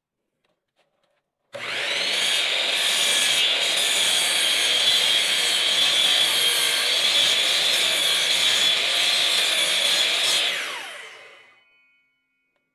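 Miter saw motor starting with a brief rising whine, then running for about nine seconds as the blade cuts through a 1x4 board at a steep 22.5-degree angle. The trigger is released near the end and the blade spins down with a falling whine.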